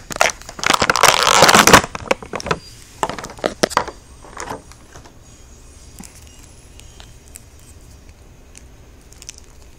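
Close handling noise of plastic action figures and their packaging: loud crinkling and rustling for the first two seconds, then a run of light plastic clicks and rustles that die away to quiet room tone about halfway through.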